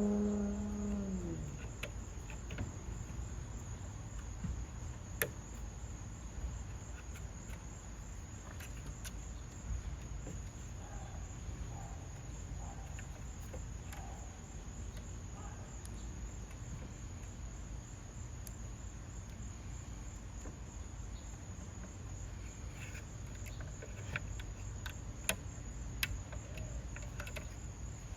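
A pitched motor-like hum dies away in the first second or so. After that, scattered light clicks and taps from handling the window regulator's cable and pulleys, over a steady thin high-pitched tone and a low hum.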